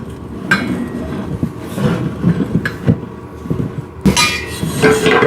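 Steel frame pieces of a home chest press clanking and knocking as they are moved and set into position, with a louder ringing metal clatter about four seconds in.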